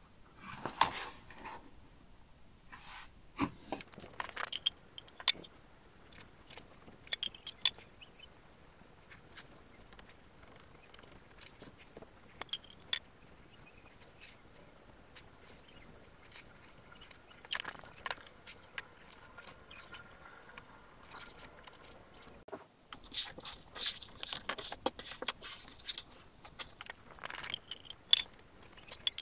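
Glue brush spreading rubber glue over the sponge of a 729 Battle 3 table tennis rubber: irregular sticky, crackly brush strokes and small clicks, with a brief break about three-quarters of the way through.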